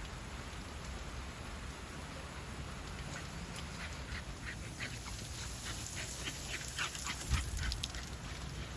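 Rain hissing steadily while a dog moves about and makes a rapid series of short, quick sounds through the middle of the clip.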